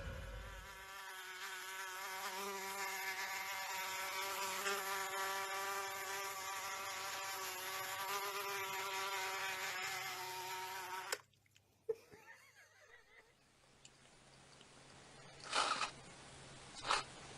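A steady, slightly wavering buzz that cuts off suddenly about eleven seconds in, followed by two short knocks near the end.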